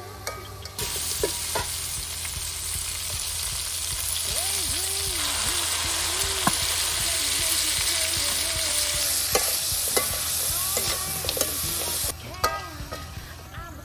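Chicken feet frying in oil in a steel wok, sizzling steadily while a metal spatula scrapes and clinks against the wok as they are stirred. The sizzle starts about a second in and cuts off abruptly near the end.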